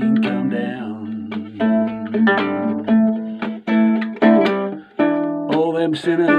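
Small nylon-string guitar strummed and picked in a steady rhythm, chord after chord ringing out, with a brief gap about five seconds in.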